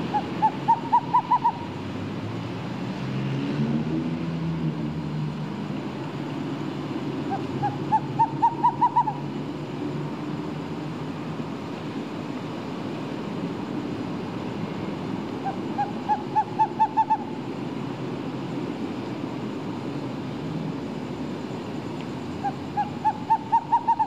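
An owl hooting: a quick series of about eight short hoots that rise slightly in pitch and get louder, repeated four times, roughly every seven to eight seconds, over a steady low rumble.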